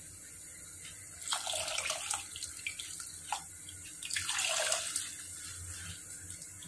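Water poured from a cup into a pot of thick chilli-tamarind curry gravy, in three splashy pours: one about a second in, a short one near the middle, and a longer one after four seconds. It is added to thin the gravy.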